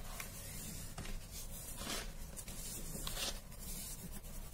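Hands squeezing and crumbling baking soda powder in a plastic bowl: a gritty crunching and rustling, with louder crunches about two and three seconds in.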